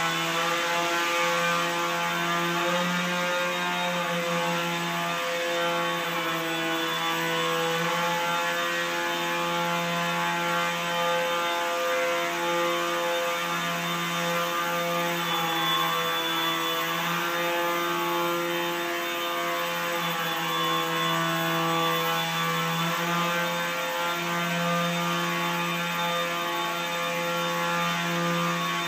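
Rotors of a small drone in a spherical cage, whirring in flight: a steady buzzing hum whose pitch shifts slightly up and down as it hovers and manoeuvres.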